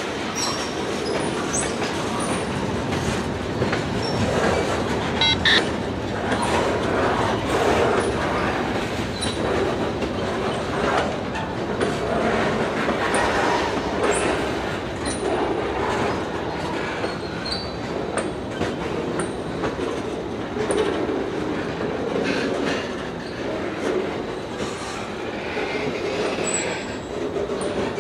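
Railroad cars of a passing train rolling by, wheels clattering over the rail joints, with brief high wheel squeals now and then.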